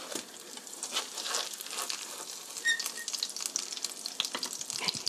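Ground pork steak sizzling and crackling in hot oil in a frying pan, with a spatula scraping against the pan as the patty is lifted and turned. A brief clink about halfway through.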